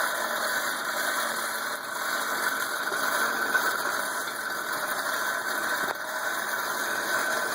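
Hand-cranked forge blower turning steadily: a continuous whirring with a high whine, feeding air to the coal fire to bring a bar up to heat.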